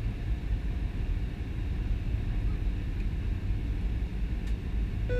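Steady low rumble of an Airbus A320's engines and airflow, heard inside the passenger cabin during the descent.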